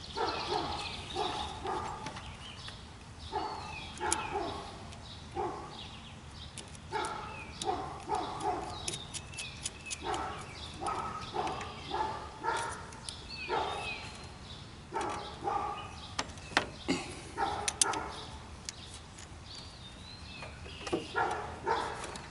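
Dogs barking repeatedly, short barks coming in quick runs, with a few sharp clicks in between.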